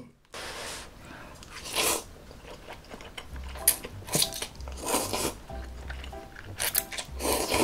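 A person slurping ramen noodles in about six short pulls, roughly a second apart, with chewing in between.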